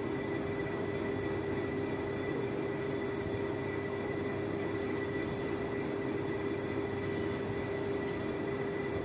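Metal lathe running, its chuck spinning a metal sleeve: a steady hum with a constant pitch and a fainter high whine above it.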